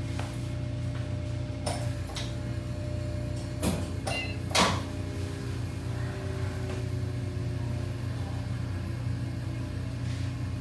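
Steady low hum of electrical equipment in a small exam room, with a few short clicks and knocks between about one and a half and five seconds in, the loudest near the middle.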